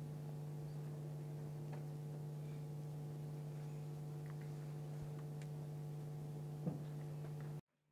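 Steady electrical hum through the sound system, with a few faint clicks. It cuts off suddenly near the end.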